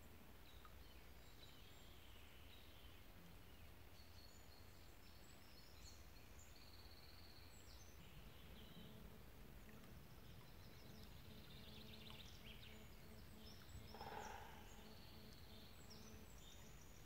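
Faint birdsong, several small birds chirping and trilling over a low outdoor rumble. A faint low hum comes in about halfway through, and near the end a short, louder, lower-pitched sound stands out.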